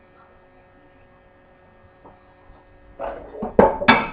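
A low steady electrical hum. About three seconds in, a quick run of loud knocks and clatter from kitchenware being handled.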